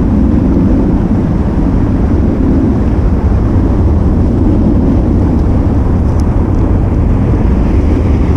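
Fast, churning river water rushing past the bank, heard as a loud, steady low rumble.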